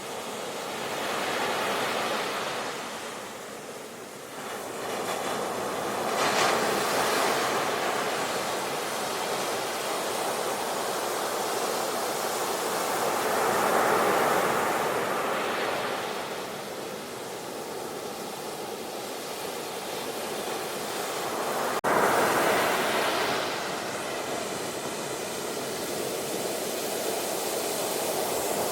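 Ocean surf: waves breaking and washing in as foamy swells of noise that rise and fall every few seconds. There is one sharp click about three-quarters of the way through.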